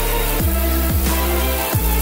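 Electronic background music with heavy bass; deep bass notes slide downward several times.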